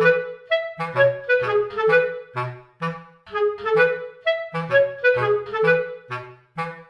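Background music: a bouncy melody of short notes, about two or three a second, over a bass line.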